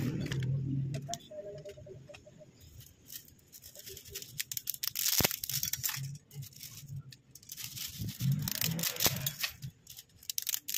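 A plastic packet crinkling and dry spaghetti sticks clicking and rattling against each other as the bundle is dropped and spread in the pot, in sharp, irregular clicks.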